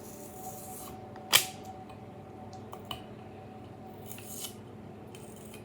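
Shrink wrap being cut and pulled off a freshly sublimated tumbler: one sharp click about a second in, a few lighter clicks, and a short rustle near the end, over a faint steady hum.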